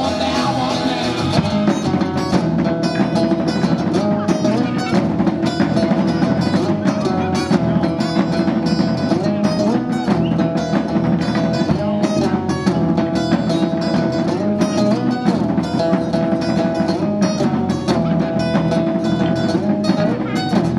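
Live rock band playing: an acoustic guitar strummed over a drum kit keeping a steady beat.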